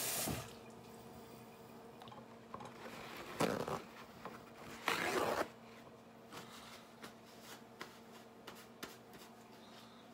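Running tap water cuts off at the start, then two short ripping rustles about a second and a half apart, followed by faint handling clicks and rustles.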